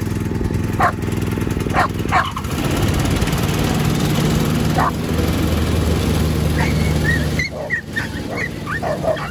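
Riding lawnmower engine running steadily, with a dog barking a few times over it; the engine sound stops abruptly about seven seconds in, leaving a quick run of barks.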